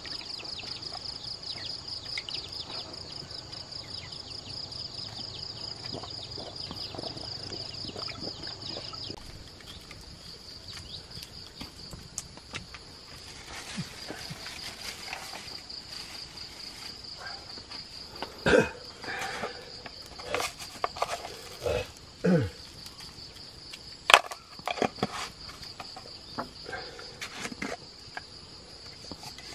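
Insects chirring steadily in the background, a high pulsing trill throughout. In the second half come several sharp knocks and clatters, the loudest a little past the middle.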